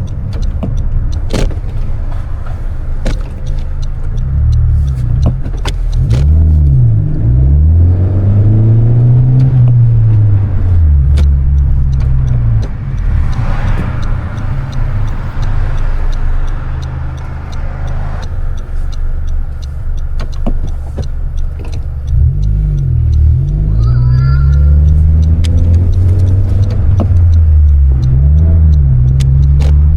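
A 2020 Honda Civic Si's 1.5-litre turbocharged four-cylinder engine driving in traffic. The revs climb and fall several times as it goes through manual gear changes, with a lighter, steadier stretch in the middle.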